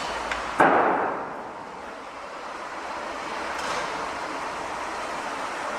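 One sudden loud bang about half a second in, fading over about a second, over the steady noise of a city construction site.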